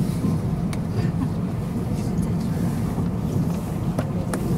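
Steady running rumble inside the passenger car of a JR Hokkaido 785 series electric multiple unit travelling along the line, with a few brief sharp ticks about a second in and near the end.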